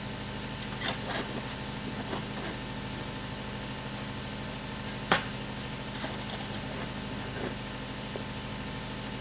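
Steel shovel blade striking and scraping into sandy, stony ground: sharp scrapes every second or so, the loudest about five seconds in. A steady low mechanical hum runs underneath.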